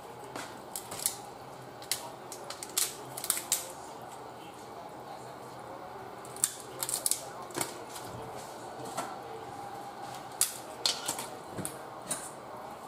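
Whole blue crabs being snapped in half by hand: irregular sharp cracks of breaking shell, a dozen or more scattered through.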